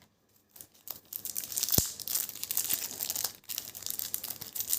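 A trading-card pack's wrapper crinkling and tearing as it is opened and handled. There is a sharp click about two seconds in.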